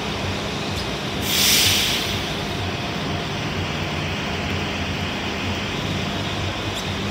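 Transit buses idling with a steady low engine hum, and a loud burst of compressed-air hiss from a bus about a second in.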